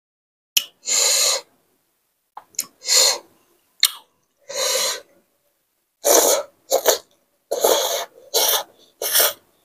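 Slurping of spicy fermented rice noodles sucked into the mouth, about eight breathy slurps each under a second long, a few led by a sharp wet smack.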